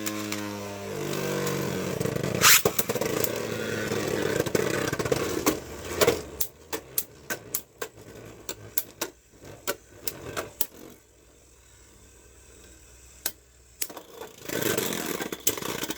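Two Beyblade Burst spinning tops launched into a plastic stadium: a whirring that falls in pitch over the first couple of seconds, then a scraping hiss with many sharp clicks as the tops clash. The spinning dies down about eleven seconds in, followed by a few more knocks and a short rattle near the end.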